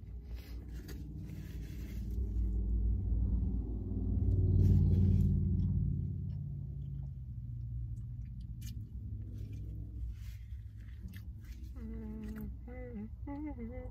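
Low engine rumble of heavy machinery or a vehicle, swelling for a few seconds and then fading away.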